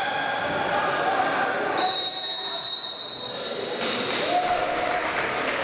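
Sounds of a basketball game on a hardwood gym floor: a ball bouncing and shouting voices. About two seconds in, a steady high-pitched squeal sounds for about two seconds.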